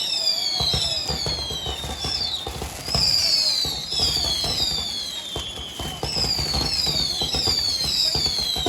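Whistling fireworks: a run of shrill whistles that overlap, each falling in pitch over about a second, with a new one starting roughly every second. Crackling and rumble from the display run underneath.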